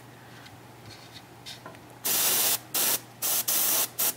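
Gravity-feed airbrush spraying thinned paint in several short hissing spurts, starting about halfway through after a quieter first half.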